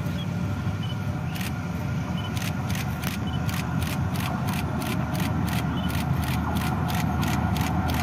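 Diesel locomotive hauling a passenger train on approach, a low engine rumble growing gradually louder. A rapid series of sharp clicks, about three or four a second, runs over it from about two seconds in.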